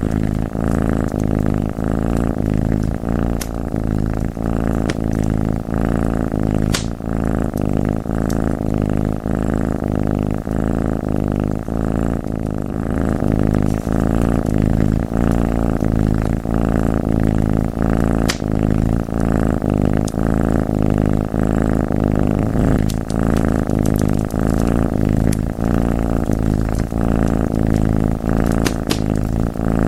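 A domestic cat purring steadily and loudly, a low pulsing rumble, with a few sharp crackles from a wood fire scattered through it.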